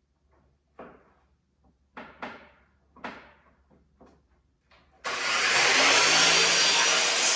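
Half a dozen separate knocks and clatters of handled tools or material, then an electric motor-driven machine switches on suddenly about five seconds in and runs steadily with a loud rushing noise.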